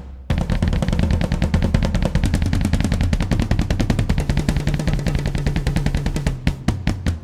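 Dance music with a rapid drum roll of fast, evenly spaced hits over a heavy bass, starting after a brief break. About six seconds in the roll thins out into a few separate strokes.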